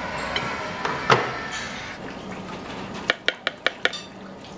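Kitchen clatter of dishes and metal utensils: a loud knock about a second in, then a quick run of about six ringing clinks near the end.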